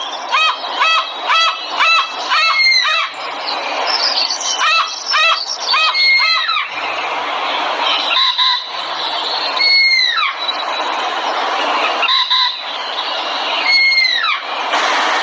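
Bird calls: a quick series of short arched notes, about two a second, then a denser run, then single calls spaced roughly two seconds apart, over a steady hiss.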